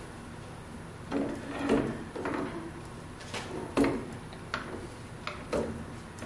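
Steel shaper leadscrew being turned and wiggled by hand into a freshly cut multi-start nut held in a lathe chuck: irregular metal knocks, clinks and scraping rubs, the loudest about two and four seconds in.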